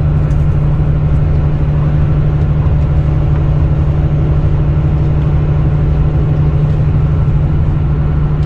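Volvo B9R coach's rear-mounted six-cylinder diesel engine running steadily at cruising speed, heard from inside the passenger cabin as a steady low drone over road and tyre noise.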